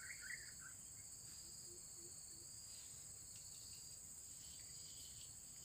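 Near silence except for a faint, steady high-pitched chorus of insects.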